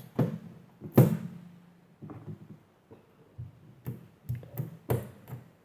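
Knocks and clicks of slime containers being handled and set down, the loudest about a second in and a quick cluster of lighter ones near the end.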